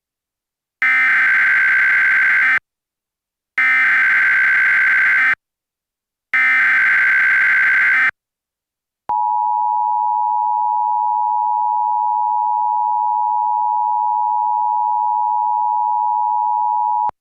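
Emergency Alert System SAME header: three bursts of digital data tones, each under two seconds, with short gaps between them. These are followed by the two-tone EAS attention signal, held steady for about eight seconds.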